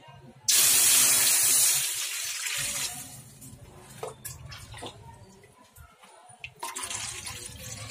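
Water poured into an empty metal cooking pot: a sudden loud splash on the bare bottom about half a second in that eases off after about two seconds, then a second pour near the end.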